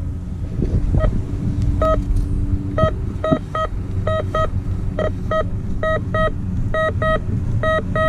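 Garrett Ultra GTA 1000 metal detector beeping at a buried target: short beeps at one pitch, single or in quick pairs about once a second as the coil passes back and forth over it. A steady low rumble runs underneath.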